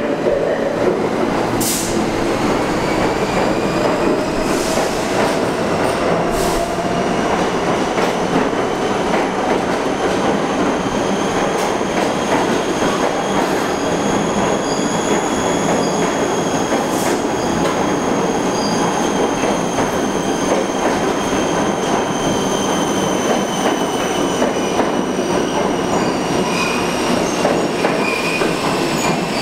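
R46 subway train running through the station past the platform: a steady rumble of wheels on rail, with a high squeal that rises slightly and then falls, and a few sharp clacks.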